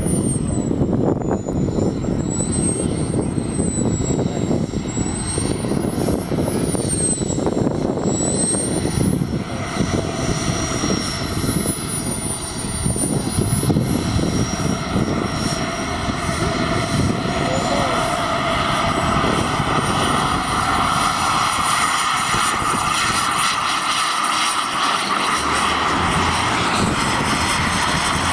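A radio-controlled model jet's engine gives a high whine that wavers in pitch, then climbs steadily about ten seconds in as the engine spools up for its takeoff run, over a low rumble.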